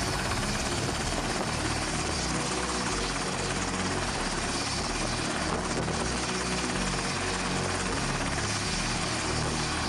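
Sikorsky S-70i Black Hawk helicopter running, its rotor and engine noise steady throughout.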